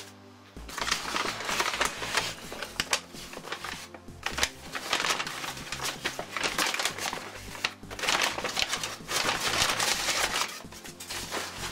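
Brown paper bag crinkling and rustling in long stretches as it is handled and opened, over background music.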